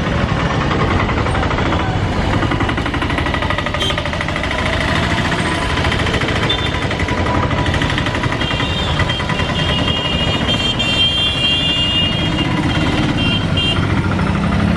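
Motorcycle and auto-rickshaw engines running close by in street traffic, a steady engine noise with a rapid, even pulse.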